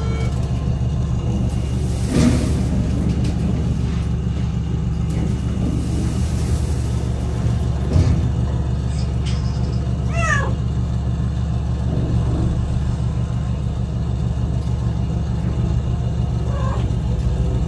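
A domestic cat gives one falling meow about ten seconds in, over a steady low hum.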